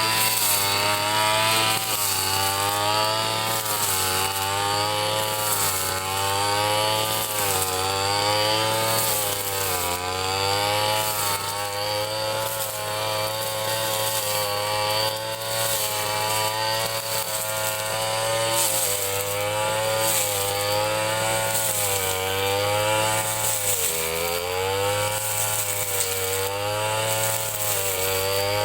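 Ryu two-stroke 30.5 cc brush cutter running, its engine pitch rising and falling every couple of seconds as the blade is swung through the grass.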